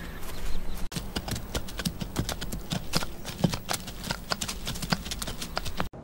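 Horse hooves clopping in a quick, irregular run of sharp knocks, cut off abruptly just before the end.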